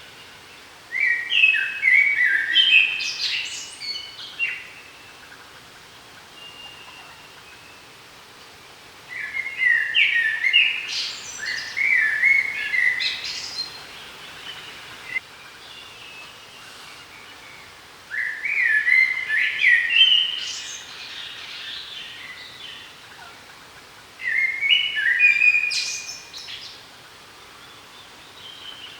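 A songbird singing four song phrases of quick, stepped, varied notes, each a few seconds long, with pauses of several seconds between them.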